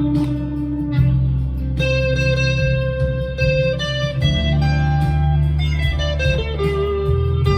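Chapman ML1 electric guitar playing a lead line of held single notes, each ringing out for up to a couple of seconds, over a backing track.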